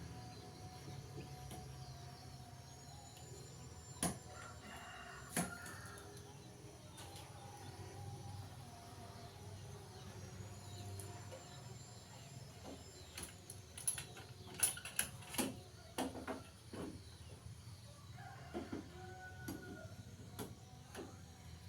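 Faint bird calls over a low steady hum, broken by scattered sharp knocks and taps: two single knocks early on, then a quick run of them about two-thirds through and a few more near the end.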